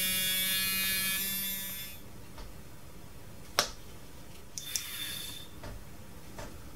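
Small electric motor of a Duracell drumming bunny's gear mechanism running with a steady buzzing whine, which stops about two seconds in. A single sharp click and a brief rustle of handling follow.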